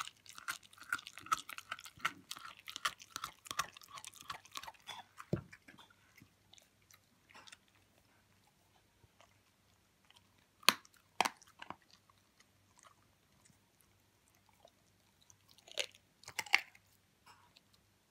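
Hamiltonstövare puppy chewing and crunching food. The chewing is quick and dense for the first few seconds, then turns to scattered crunches with a few sharp, loud bites.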